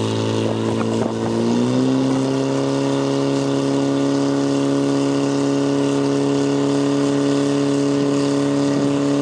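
Portable fire pump's engine running at high revs as it drives water through the hose lines, its pitch stepping up a little about a second and a half in and then holding steady.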